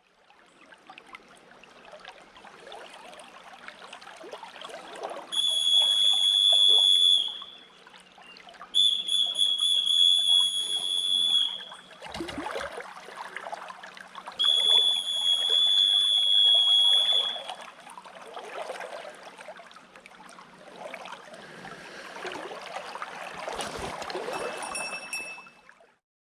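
Flowing river water running steadily, broken by three long, steady, high-pitched whistles of two to three seconds each, which are the loudest sounds.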